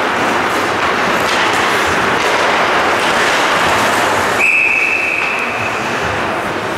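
Ice hockey rink noise of skates scraping on the ice, then about four and a half seconds in a referee's whistle blows one long, steady blast, signalling a stoppage in play.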